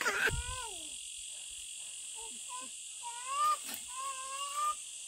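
Steady high drone of insects, with a few short pitched calls over it: a falling call right after a sudden noise at the start, then rising and level calls about three and four seconds in.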